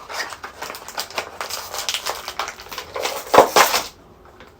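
Blind-box packaging being crinkled and torn open, a run of irregular crackles and rustles with the loudest burst about three and a half seconds in, then it goes quiet.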